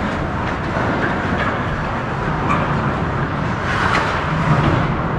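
Steady, loud noise of a hockey game in play, with a few faint sharp clicks.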